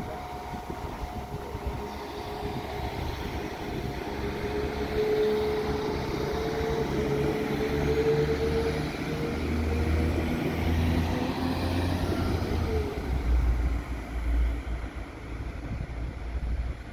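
Northern multiple-unit passenger train pulling out of the station and moving away, its running noise carrying a steady whine through the middle. Low wind buffets on the microphone near the end.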